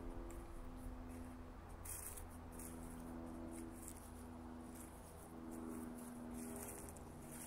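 Footsteps crunching on dry fall leaves and grass, heard as crackly bursts about two seconds in and again near the end, over a low wind rumble on the microphone. A faint hum that shifts pitch a few times runs underneath.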